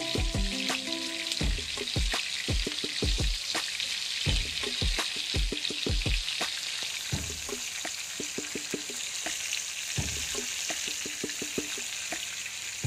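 Coconut oil sizzling steadily around a masala-coated fish shallow-frying in a nonstick pan, with many short sharp pops and taps, thickest in the first half and sparser later.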